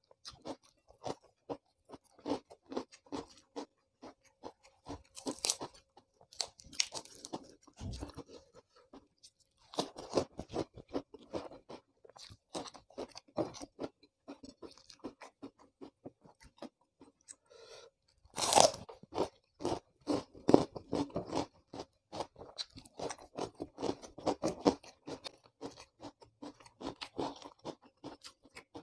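Close-miked crunching and chewing of raw vegetables such as sliced bitter melon, an irregular run of crisp bites and chews with a few louder sharp crunches, the loudest about 18 seconds in.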